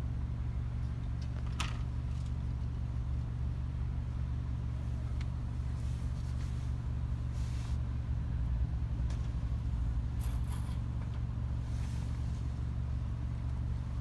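Steady low rumble of a vehicle engine running, with a few faint knocks and rustles over it.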